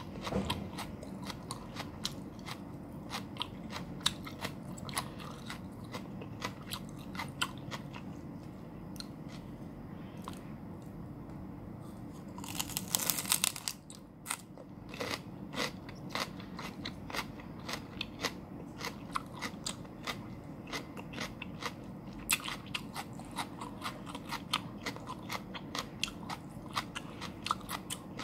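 Raw celery stalk being bitten and chewed close to the microphone: a steady run of crisp crunches and crackles, with one dense, loud burst of crunching about halfway through as a big bite snaps off.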